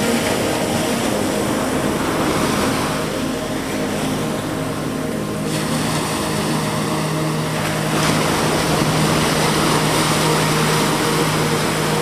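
Small ocean waves breaking and washing up a sandy beach, with a fresh wash coming in about two-thirds of the way through. A steady low hum runs underneath and grows stronger in the second half.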